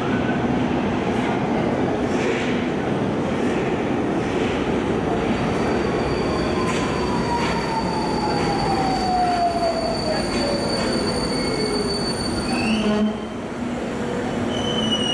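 Budapest Metro Line 4 Alstom Metropolis train pulling into the station and braking to a stop: a steady rolling rumble with an electric whine that falls in pitch as it slows. A brief squeal comes as it halts about 13 seconds in; then it goes quieter and a high steady tone sets in near the end.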